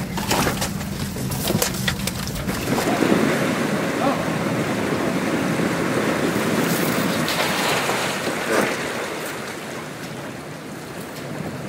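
Water splashing and streaming as a cast net full of mullet is hauled up at the side of a boat, with wind on the microphone. The splashing is heaviest from about three to nine seconds in, after a few sharp knocks at the start.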